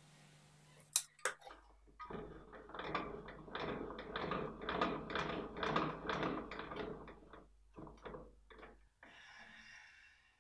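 Metal parts of shop machines being handled and adjusted by hand. It starts with a couple of sharp clicks, then several seconds of rapid, irregular clicking and rattling over a low hum.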